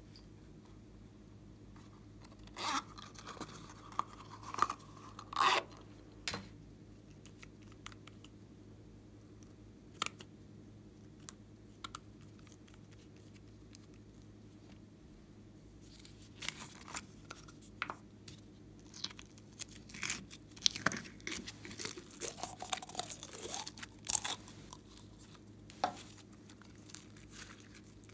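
Hands handling small plastic slime-supply containers: scattered clicks, taps and short crackly rustles. They come in a bunch about three to six seconds in and a busier run in the second half.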